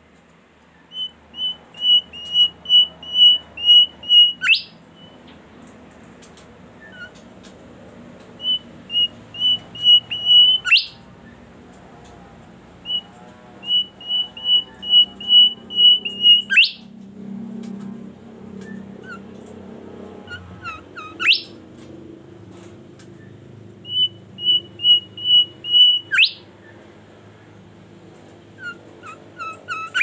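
A bimoli (golden whistler) singing repeatedly. Each phrase is a quick run of even whistled notes ending in a sharp upward whip note, about six phrases, every five or six seconds.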